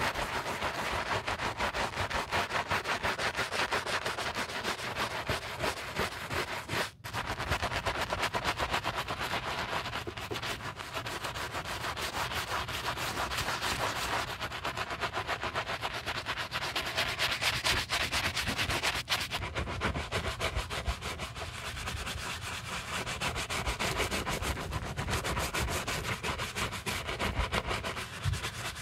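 Wooden-handled bristle brush scrubbing a lathered white leather-and-rubber sneaker in rapid, even back-and-forth strokes, breaking off briefly about seven seconds in.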